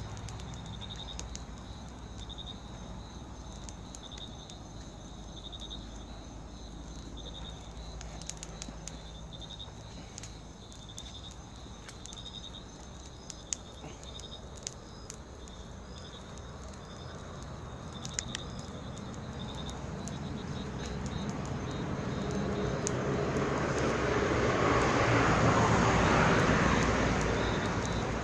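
A ring of fire burning on the ground, giving off scattered sharp crackles and pops, with crickets chirping steadily behind. Near the end a broad rushing noise swells over several seconds and then fades.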